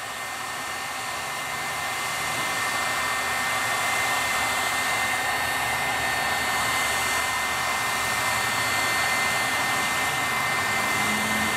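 Handheld electric heat gun running steadily as it heats a motor coupler: an even rushing blow of air with a thin steady whine. It grows a little louder over the first few seconds, then holds.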